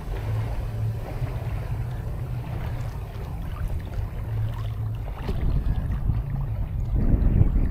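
Wind buffeting the microphone: a steady low rumble that gusts louder near the end, with a few faint clicks.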